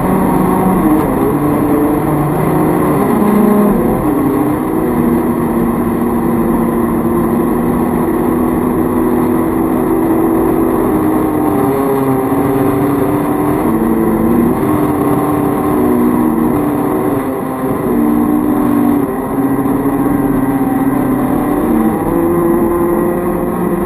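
Brushed electric drive motors of a toy RC boat converted to hobby-grade electronics, running continuously; their hum shifts up and down in pitch every few seconds as the throttle changes, over a steady rush of noise.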